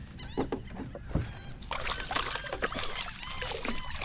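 A hooked speckled trout splashing and thrashing at the water's surface beside a kayak as it is brought to the net, with the splashing growing loud about a second and a half in. Birds call over it in quick repeated chirps.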